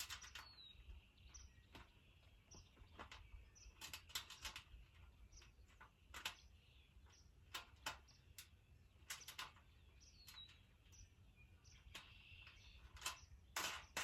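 Faint, irregular clicks and taps of screws and wing nuts being worked on a raised-bed frame, with a bird giving a short falling chirp twice.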